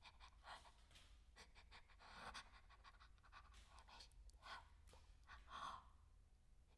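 Near silence, broken by faint scattered breathy sounds and soft scratching.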